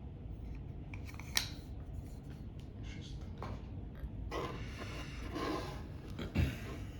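Handling of a tarot deck's packaging: a sharp click a little over a second in, then rustling and scraping from about four seconds in.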